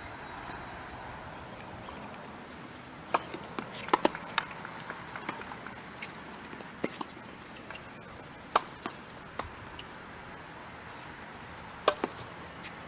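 Tennis rally on a hard court: sharp racket strikes and ball bounces, heard as irregular knocks starting a few seconds in, with the loudest hits in quick pairs, over a steady background hiss.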